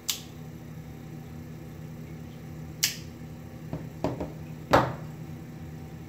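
Sharp clicks and knocks from a carbon-fibre quadcopter frame being handled on a desk: one at the start, one near three seconds, a few small ones around four seconds and the loudest near five seconds, over a low steady hum.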